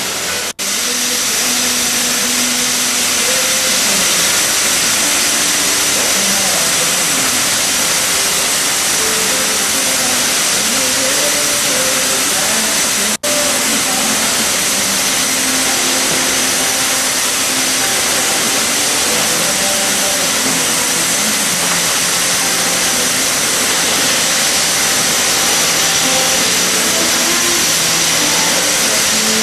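Sheep-shearing machinery running steadily, a continuous motor whirr and hiss, with two very brief dropouts in the sound.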